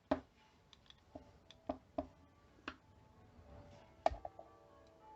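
Light clicks and taps of small airsoft pistol parts being handled and the rear sight fitted, a handful of separate clicks. From about four seconds in, faint church bells start ringing with lingering tones.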